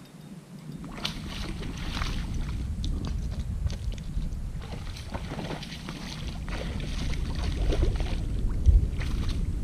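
Wind buffeting the microphone: a low rumble that starts about a second in and grows stronger toward the end, with scattered short crackling noises over it.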